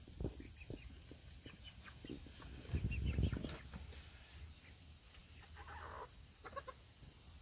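Young backyard chickens clucking quietly, a few short scattered clucks, with a brief low rumble about three seconds in.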